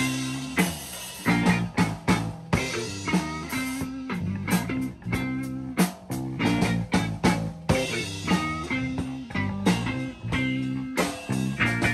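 Blues-rock music: electric guitar playing over a drum beat.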